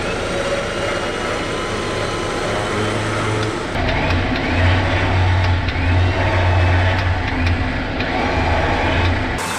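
Ridge Ryder 12,000 lb 12-volt electric winch on a GU Nissan Patrol running continuously, winding synthetic rope onto its drum under load, over the steady hum of the truck's idling engine. The sound grows louder about four seconds in.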